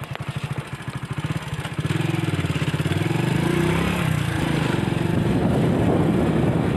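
A small engine running with a rapid, even beat, growing louder over the first two seconds and then holding steady.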